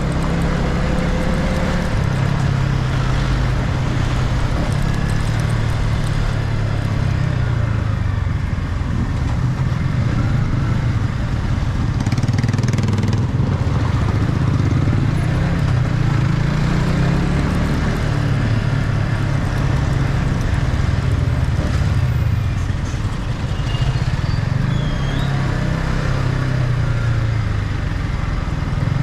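Yamaha MT-15's 155 cc single-cylinder engine running through its stock exhaust while under way, its note rising and falling gently with the throttle.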